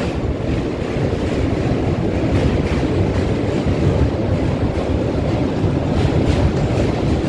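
Doon Express passenger train running, heard from on board: a steady rumble and rattle of wheels and carriage.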